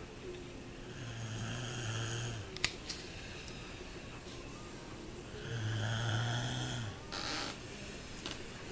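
Sleeping snorer breathing in rhythm: two long, low buzzing snores on the in-breath, about four seconds apart, with a short breathy puff after the second. Two sharp little clicks come just after the first snore.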